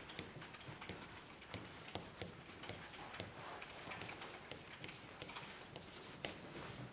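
Faint, irregular clicks and taps of a stylus pen writing on an electronic whiteboard screen.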